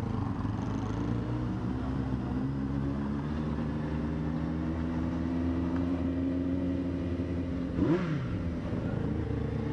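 Yamaha FZS600 Fazer's inline-four engine running steadily at low speed, with one short rev that rises and falls in pitch near the end.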